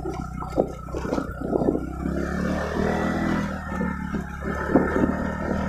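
Motorcycle engine running while riding over a rough gravel road, with the clatter of stones and the bike jolting over the bumps. The engine sound grows steadier and stronger about two seconds in.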